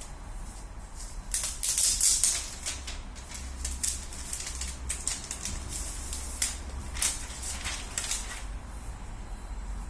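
Irregular clicks and rustles of a laptop and its packaging being handled, densest and loudest about two seconds in, over a steady low hum.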